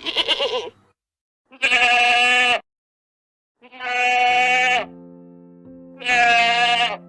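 A farm animal bleating four times, each call loud and about a second long, the first one quavering. Soft sustained music notes come in under the calls about halfway through.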